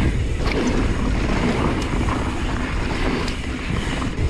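Mountain bike riding fast down a dry dirt and gravel trail: tyres rolling over loose dirt and stones, with the bike rattling and a few light knocks. Wind rushes over the microphone throughout.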